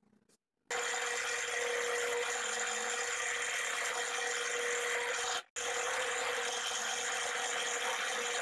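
Benchtop drill press running and boring into a hardwood block: a steady motor whine over the hiss of the bit cutting. It starts suddenly under a second in and drops out for an instant about five and a half seconds in before running on.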